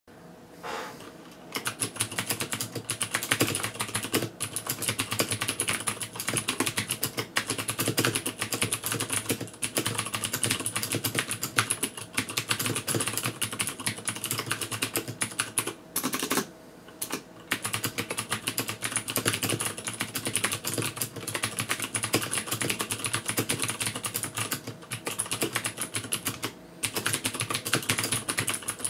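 Steady fast typing on a Choc Mini mechanical keyboard with clicky Cherry MX Blue switches, a rapid run of key clicks. It breaks off in brief pauses, the longest about sixteen seconds in.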